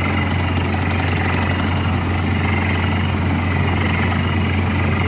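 Drilling rig's engine running at a steady speed, a deep even drone that holds constant throughout.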